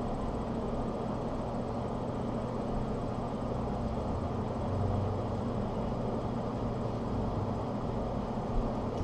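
Steady low room rumble and hum with no distinct events, and a faint soft knock near the end.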